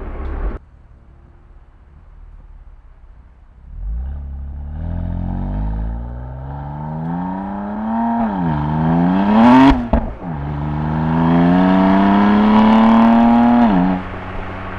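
BMW M2 Competition's twin-turbo inline-six accelerating hard, its note climbing steadily in pitch under throttle and dropping at the shifts, with a sharp crack at a shift about ten seconds in. After a long second pull the engine note falls away near the end.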